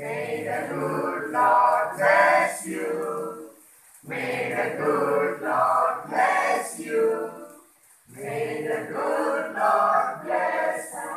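A group of men and women singing a birthday song together in three phrases, with a short breath between phrases about four and eight seconds in.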